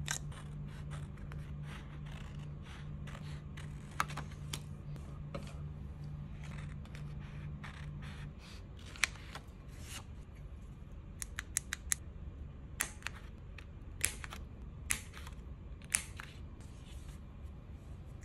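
Scissors cutting through dot-grid notebook pages: a run of short, sharp snips and clicks, louder and more frequent in the second half.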